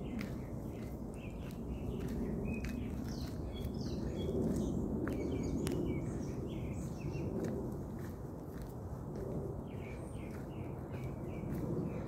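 Footsteps on a gravelly dirt trail with a low, uneven rustle of movement, while birds chirp in short, repeated notes.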